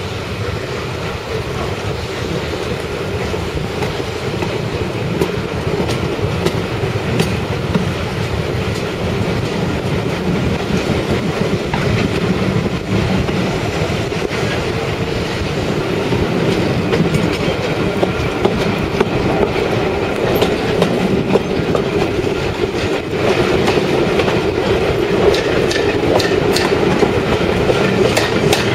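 A train running along the track, the wheels clicking over the rail joints. It grows louder toward the end.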